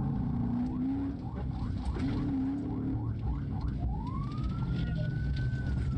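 Police cruiser siren: quick repeated yelp sweeps, then about four seconds in a slow wail that rises, holds and starts to fall, over the cruiser's engine and road noise.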